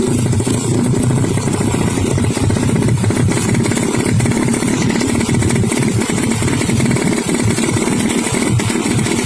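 Motorcycle engine running steadily and loudly, with a dense rapid firing pulse and no change in pitch.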